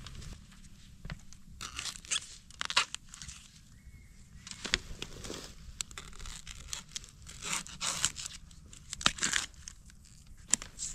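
A knife hacking at the base of a young bamboo shoot amid dry bamboo leaves and papery sheaths, which rustle and crackle in a string of short, sharp cracks and scrapes, a few of them louder.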